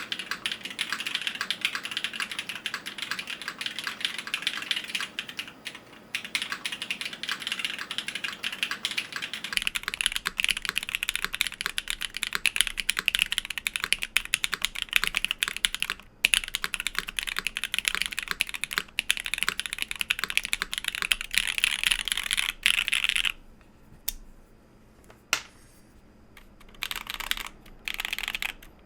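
Fast, continuous typing on a custom mechanical keyboard with an aluminium case and plate, factory-lubed BSUN BCP switches and GMK keycaps, a dense run of key clacks. The typing stops about 23 seconds in, then resumes in a few short bursts near the end.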